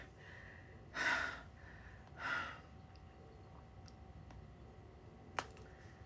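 A person sighing twice in short breathy exhales, then a single sharp click near the end.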